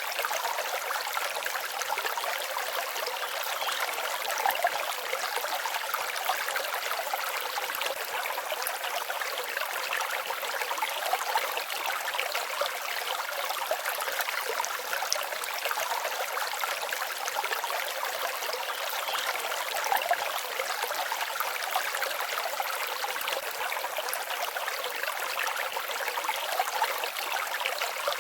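Forest stream babbling steadily, an even rush of water with small trickling splashes.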